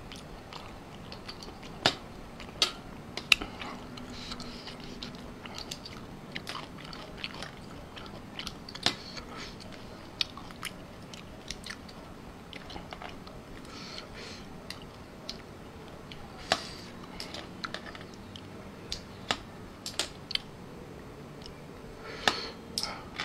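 Close-miked chewing of blanched blood cockles, with scattered sharp clicks as a metal spoon scrapes and taps the cockle shells to pry out the meat.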